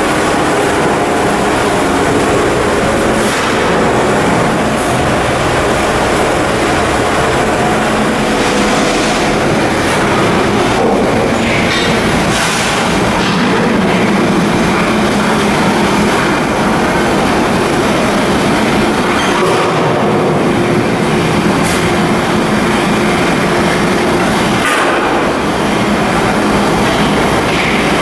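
Continuous loud industrial noise of heavy machinery in a shipyard: a steady mechanical drone with a few steady tones and metallic rattle, broken now and then by short hissing flares.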